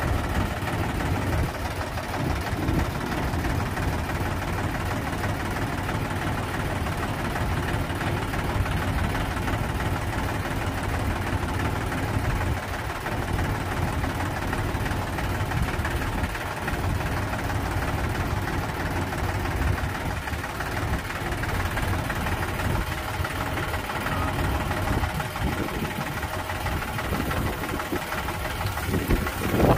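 Sonalika DI 35 tractor's three-cylinder diesel engine running steadily at low revs.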